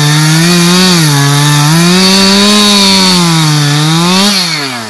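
Two-stroke chainsaw cutting through a tree stump at ground level, running at full throttle, its engine pitch dipping and recovering as the chain bites into the wood. A little past four seconds the throttle is released and the engine winds down toward idle.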